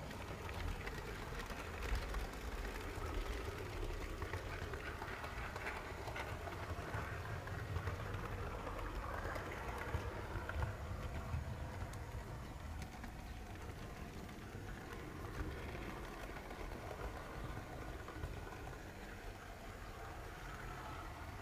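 HO-scale model train rolling along its track, heard from a camera riding on the train: a steady rumble of wheels and electric motor with occasional light clicks.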